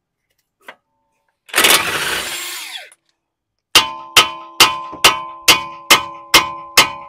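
Hammer blows on the steel steering knuckle of a 2005 Toyota Camry, about eight sharp ringing strikes at a steady two or so per second, knocking the tie rod end's tapered stud loose from the knuckle. Before them comes a burst of power-tool noise lasting about a second and a half.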